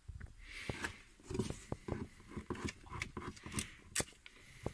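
Paper handling: old instruction sheets and a booklet rustling and scraping against a telescope's carrying case, with many small clicks and knocks. A brief hissing rustle comes about half a second in.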